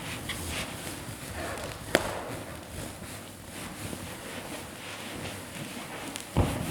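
Large latex balloons being handled and ridden: rustling and rubbing against the rubber, a sharp snap about two seconds in, and a low thump near the end.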